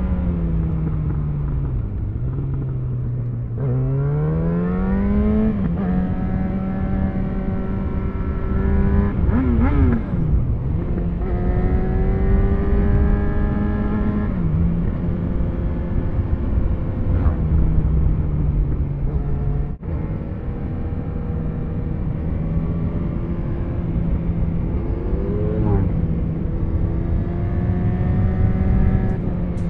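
Motorcycle engine and wind noise heard from the rider's helmet. The engine note falls as the bike slows, climbs again as it accelerates about four seconds in, and then settles into a steady cruising drone broken by several gear changes.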